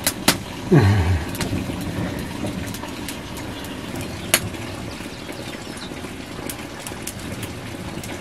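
Wood fire crackling, with sharp pops every second or so over a steady low rumble. A brief low falling sound about a second in.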